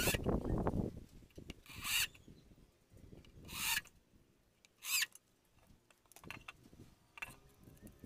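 Power drill driving screws into wood in short trigger bursts, three strong ones about a second and a half apart and a weaker one near the end, each swelling and then cutting off suddenly, as a metal lock plate is screwed onto a wooden panel.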